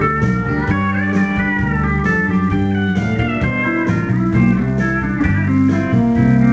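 Live country band music: a pedal steel guitar plays sliding, gliding notes over electric guitar and bass.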